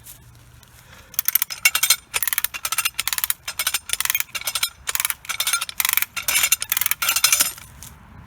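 Hand-operated come-along being ratcheted, its pawl clicking in quick bursts, about three strokes a second, starting about a second in. It is winding in the rope to pull a tree over.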